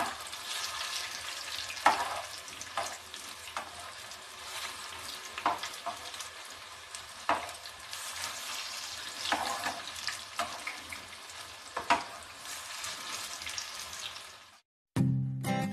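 Noodle fritters (chow pakoras) sizzling as they shallow-fry in hot oil in a non-stick pan, with a slotted metal spatula clicking and scraping against the pan now and then as the fritters are turned. The sizzling fades out near the end.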